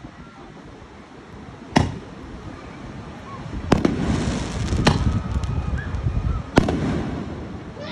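Aerial fireworks going off: four sharp bangs spaced one to two seconds apart, with crackling from the bursting stars around the middle.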